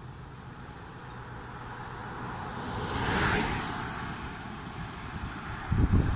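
Road traffic passing close by. A car's rush of tyre noise swells and fades about three seconds in. Near the end a heavier low rumble buffets as a utility truck goes past.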